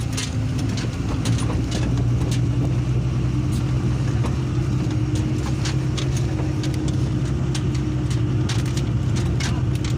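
A motor vehicle's engine running steadily with a constant low hum, with scattered light clicks and knocks throughout.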